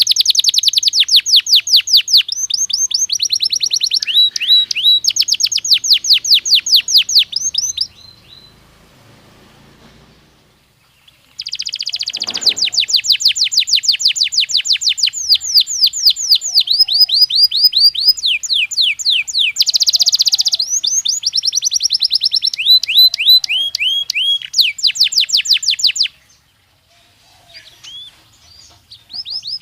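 Belgian canary singing: long phrases of rapid trills, each a quick run of repeated falling notes, several per second. The song pauses for a few seconds about a quarter of the way in, then runs again until a short break near the end.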